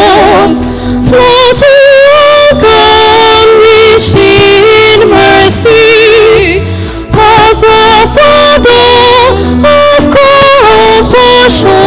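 A woman singing a slow church psalm with wide vibrato over sustained instrumental accompaniment: the sung responsorial psalm of a Catholic Mass.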